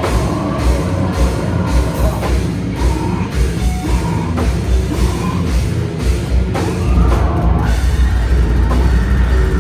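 A slam death metal band playing live, loud: heavily distorted guitars and bass over pounding drums. About seven seconds in the low end thickens into a denser, more continuous wall of sound.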